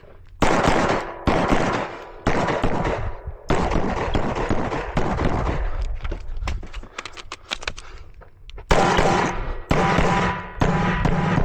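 A string of pistol shots fired during a timed practical-shooting stage, at irregular intervals, each shot trailing off into echo.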